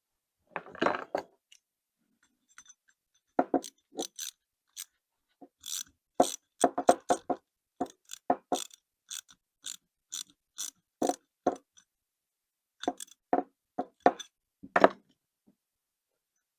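Small metal carburetor parts and hand tools clicking and knocking against each other and the workbench, in irregular sharp taps, as jets are fitted and tightened into a Zenith carburetor body.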